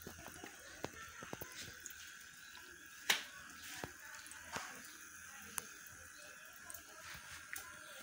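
Small water jets from a plastic-bottle fountain splashing into a shallow basin, with scattered sharp drips and plinks, the loudest about three seconds in. A faint steady high hum runs underneath.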